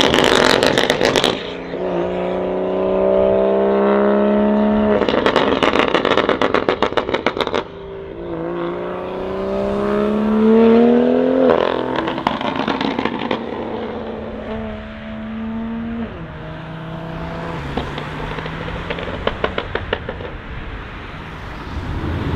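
BMW M2 LCI's turbocharged straight-six through a catless valvetronic exhaust, revving up under acceleration with the pitch dropping at a gear change. On lifting off, the exhaust crackles and pops in rapid runs, three times, a typical sign of a catless, straight-through exhaust on the overrun.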